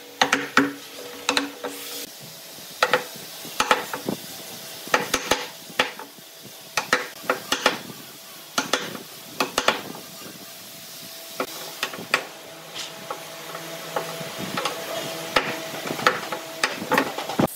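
Wood chisel chopping and paring out shallow recesses for bowtie keys in a wooden slab: irregular sharp knocks, roughly one a second, with the scrape of the blade lifting chips between them.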